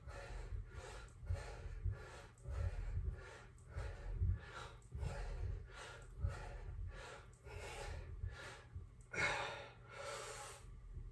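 A man breathing hard from exertion during a set of dips: short, quick breaths about twice a second, with two louder, longer breaths near the end.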